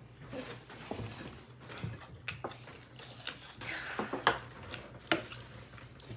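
A spoon and dishes clinking lightly at a meal: scattered small knocks and clicks, the sharpest a little past four seconds in.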